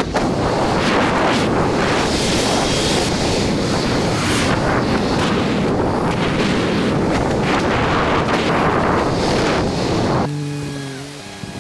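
Wind buffeting the microphone in loud, gusty rushes. About ten seconds in the wind drops away, leaving a quieter stretch with a faint steady hum of a few low tones.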